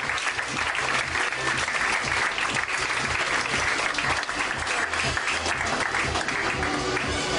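Audience applauding with steady, dense clapping, with music playing underneath.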